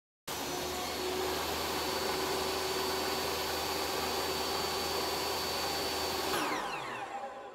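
Table saw running steadily at speed with a constant motor whine, not cutting, then switched off about six seconds in, its pitch falling as the blade spins down.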